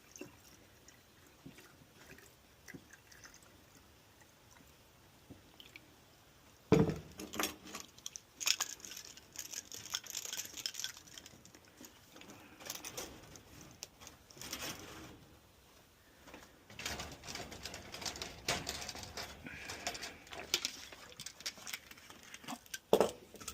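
Water being poured and splashing into a rabbit's water container, among knocks and clatter from handling the containers. After a quiet start there is a sharp knock about seven seconds in and another near the end.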